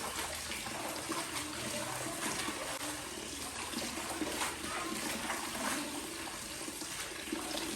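Water running from a kitchen tap into a sink, splashing steadily as something is rinsed under it.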